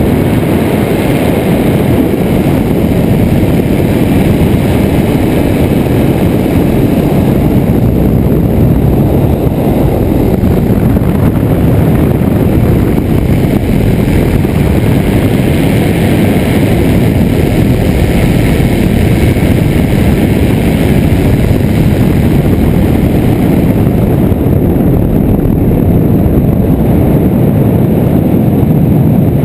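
Steady in-flight noise of an ultralight trike: wind rushing over a wing-mounted camera over the drone of its Rotax engine, loud and unbroken.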